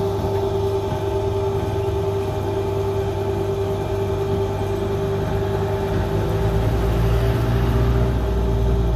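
Steady mechanical hum with a constant droning tone, and a deeper rumble that swells about five seconds in.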